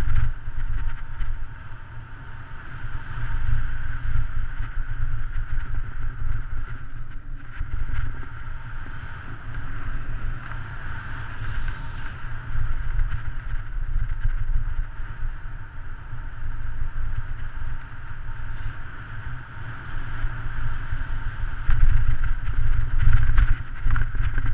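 Wind buffeting the action camera's microphone on a fast road-bike descent: a heavy low rumble that swells and fades and is loudest near the end, over a steady higher hiss of tyres on asphalt.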